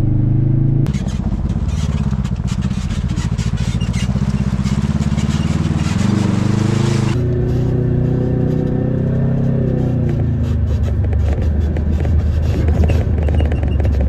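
Side-by-side UTV engine running steadily, heard from inside the enclosed cab while driving on a rough trail. Its pitch rises and falls with the throttle, and there is a lot of clattering and rattling in the first half.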